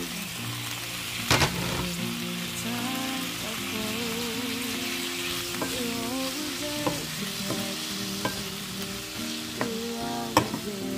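Halved cherry tomatoes sizzling in hot olive oil in a frying pan while a wooden spoon stirs them, with a few sharp knocks of the spoon, the loudest about a second and a half in.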